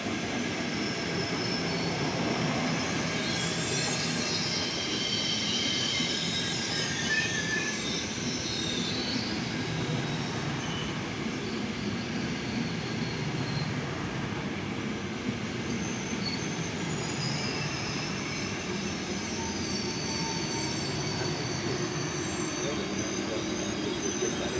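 Frecciarossa high-speed train running past on the rails, a steady rolling rumble of wheels and carriages. High-pitched wheel squeal rises over it a few seconds in, fades, and comes back in the second half.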